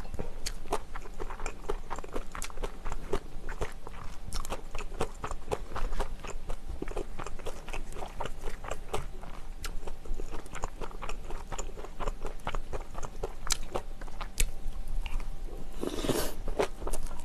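Close-miked crunchy chewing of a mouthful of bibimbap and kimchi: many quick crisp crunches and mouth clicks. A brief, louder noisy sound comes near the end as another spoonful goes in.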